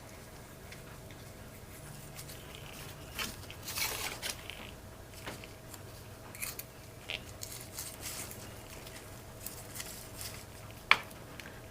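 Small metal parts of a ratchet being handled and wiped at a bench: scattered light clicks and short scraping rubs, with one sharper click near the end.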